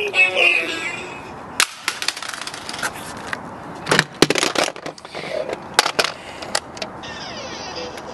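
Plastic toys being handled and knocked about, giving a dozen or so sharp, irregular knocks and clatters with the loudest around the middle. A sung tune trails off in the first second.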